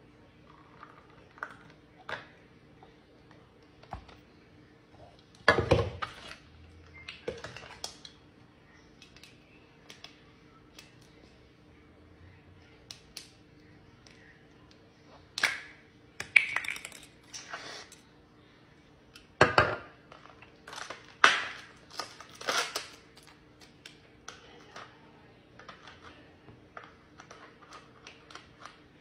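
Irregular clicks, taps and short rustling knocks as bottles, a plastic cup and small packets are handled and set down on a stone countertop, with a few louder clatters; a faint steady hum sits underneath.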